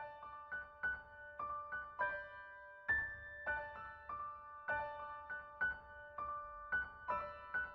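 Soft, slow piano music: single notes struck about every half second and left to ring out.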